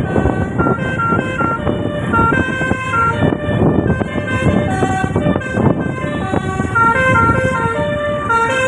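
A bus's telolet horn, a set of electrically switched air horns, playing a quick tune of stepped notes over engine and road noise.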